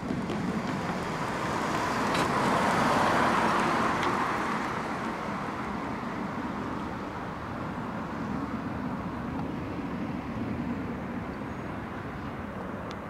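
Street traffic at a railroad crossing: a road vehicle passing swells and fades about two to four seconds in, over a steady background rumble of traffic.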